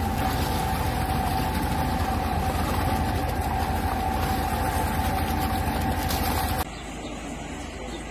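Water tanker truck's engine running steadily, driving water out of a fire hose that gushes into a plastic tub. It cuts off abruptly near the end, leaving a quieter background.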